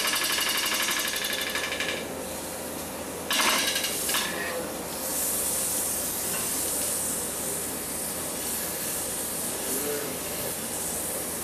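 A wood lathe in use, with a turning tool cutting into a spinning wooden vessel. For about two seconds the cut pulses quickly and evenly. A sharper scrape comes about three and a half seconds in, and then the tool cuts with a steady hiss.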